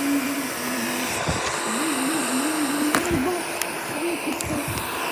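Roomba robot vacuum running: a steady fan hiss with a wavering motor whine, and a few light clicks.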